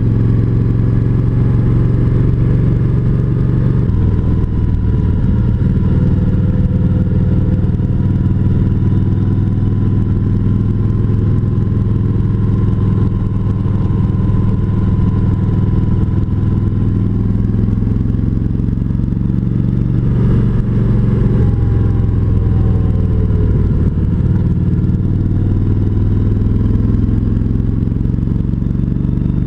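Kawasaki Vulcan 1700 Voyager's V-twin engine running under way at road speed, heard through a helmet-mounted camera. Its pitch shifts about four seconds in, then falls as the bike slows around twenty seconds in and climbs again as it picks up speed.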